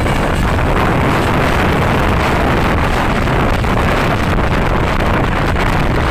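Steady wind buffeting on the microphone over the engine and road noise of a moving vehicle, with no horn sounding.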